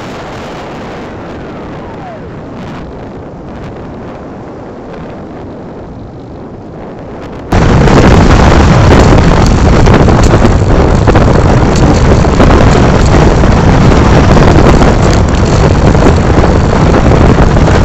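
Onboard sound of a model plane picked up by a phone strapped to it. At first there is a steady rush of motor, propeller and air with a brief falling whine. About seven and a half seconds in it jumps suddenly to a loud, distorted rush of motor, propeller and wind that overloads the phone's microphone.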